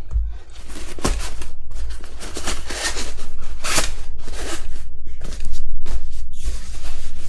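A stiff cardboard template scraping and rustling against a backpack's fabric lining as hands push and press it into place, in a series of uneven bursts, loudest a little past the middle.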